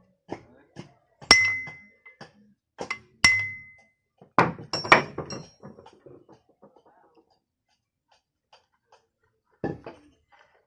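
Metal parts of an electric planer clinking and knocking together while it is reassembled: a few sharp metallic taps with a brief ring, a short cluster of knocks about halfway, then quiet and one more knock near the end.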